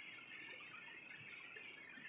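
Faint, steady chorus of night insects, with no other sound standing out.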